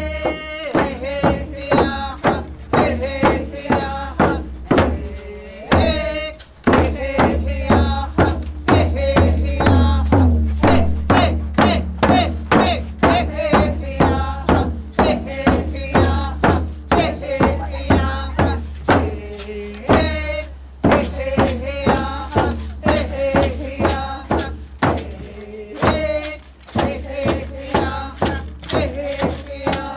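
Traditional Tlingit song: a group singing together over a steady, even beat on hand-held frame drums.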